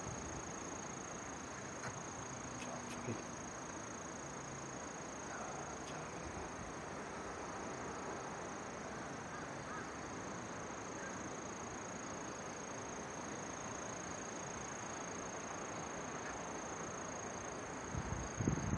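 Insects trilling steadily, one high unbroken tone, over a low outdoor hiss. A few low bumps near the end.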